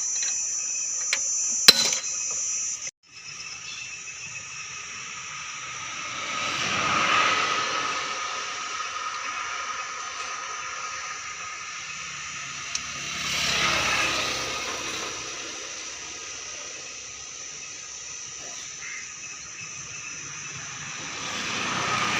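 Motor vehicle noise that swells and fades three times, about seven seconds apart, over a steady high hiss.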